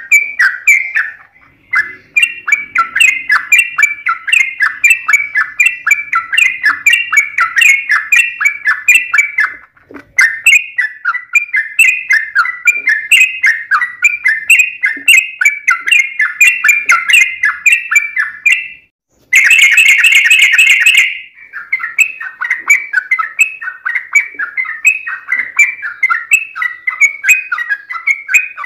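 Yellow-vented bulbul (trucukan) song: a long, fast run of bubbly, chattering notes that breaks off briefly about a second and a half in and again about ten seconds in. About nineteen seconds in, a louder, harsher two-second burst cuts through the run.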